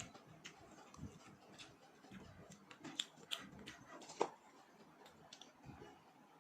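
Quiet close-up eating sounds: irregular mouth clicks and smacks while chewing, with a few louder clicks about three and four seconds in.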